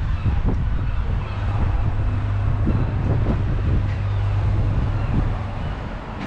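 Wind buffeting the microphone in a heavy low rumble. A steady low hum runs under it for a few seconds in the middle.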